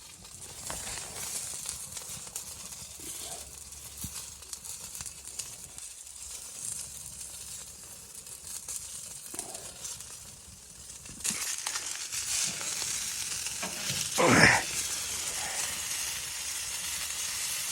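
A sizzling hiss that grows louder about eleven seconds in, with a short, louder sound a few seconds later.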